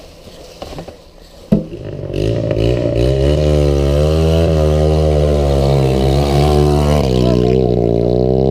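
A dirt bike's single-cylinder engine catches about two seconds in, just after a sharp knock, then runs loud with the revs rising and falling as the throttle is worked; the revs drop away at the end.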